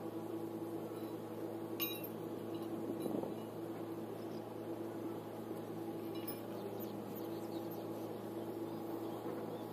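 Steady machine hum with a constant low tone, and a brief light metallic clink about two seconds in.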